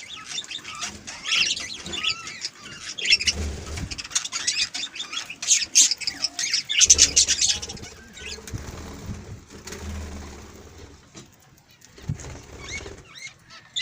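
Pet budgerigars chirping and chattering in quick high notes, with several short bursts of wing flapping close by.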